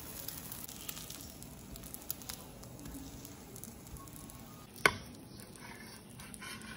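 Roti john frying in oil in a nonstick pan: a quiet, steady sizzle with small crackles. One sharp knock sounds about five seconds in.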